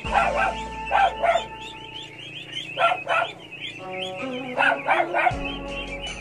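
Background music under a flock of ducklings peeping, with loud, short animal calls that come mostly in pairs several times.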